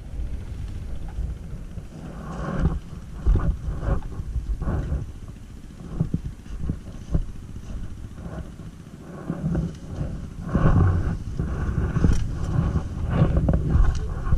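Stels Guepard 850 ATV engine running and revving unevenly, with scattered knocks and rattles.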